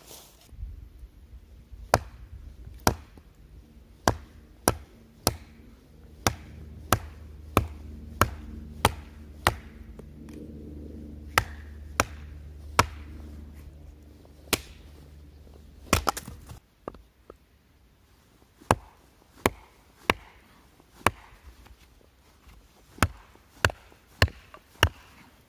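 Repeated chopping strikes on wood, one sharp knock every half second to second or so, with short pauses between runs: firewood being chopped or split at a campsite. A steady low rumble sits under the first two-thirds and stops about two-thirds of the way through.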